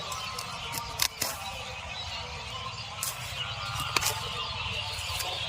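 A few sharp snaps, four in all, as lettuce stems are cut or broken off, over a steady outdoor hiss.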